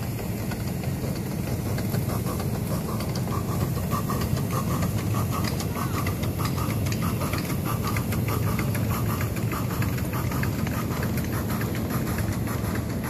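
Miniature ride-on train rolling past, its wheels clicking rapidly over the rail joints under a steady low running hum.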